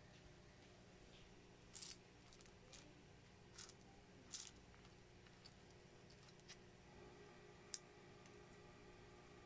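Small plastic Lego pieces clicking and clattering as they are picked through on a tabletop: a scattering of light clicks from about two seconds in, the loudest one near four and a half seconds. One more sharp click later as pieces are pressed together between the fingers.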